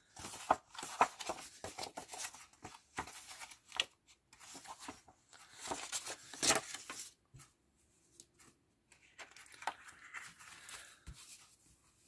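Sheets of patterned scrapbooking paper being lifted, slid across a cutting mat and smoothed by hand: a run of short rustles and swishes with a few crisp flicks, easing off to a quiet stretch about two thirds of the way through.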